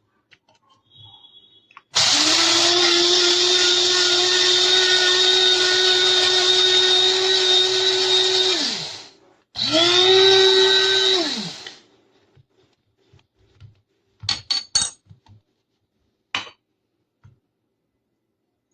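Proctor Silex electric blade coffee grinder running in two pulses. The first is a steady motor whine of about seven seconds that winds down in pitch. The second is a shorter burst of about two seconds that spins up and winds down. A few sharp clicks and knocks follow near the end.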